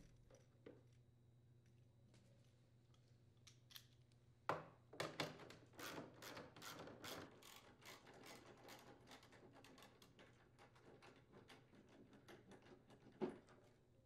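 Faint run of light clicks and knocks from a 3/8-inch socket tool backing out the plastic shroud's mounting screws on a snowblower. It starts about four and a half seconds in, is quickest for the next few seconds, then thins out, with one sharper knock near the end.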